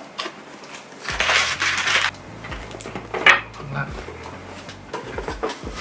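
Packing material rustling and crinkling as it is rummaged through inside a cardboard shipping box, with a few sharp knocks and clicks.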